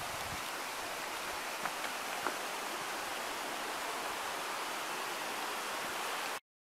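Steady rush of a rocky mountain stream's rapids, with a couple of faint ticks about two seconds in. The sound cuts off suddenly near the end.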